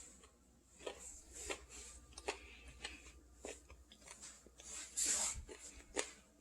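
Faint, scattered soft clicks and short rustles, with a louder rustle about five seconds in and a sharp click about a second later.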